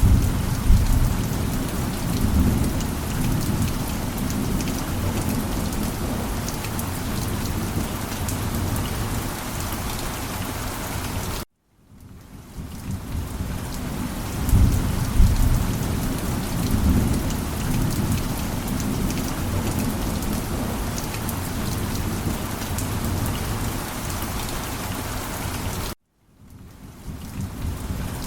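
Steady rain falling, with low thunder rumbling and swelling underneath. The sound cuts out suddenly about 11 seconds in and again near the end, each time fading back in, as a looped ambience recording restarts.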